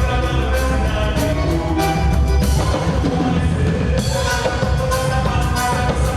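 Forró music playing, with a steady drum beat and a strong bass line under pitched instruments.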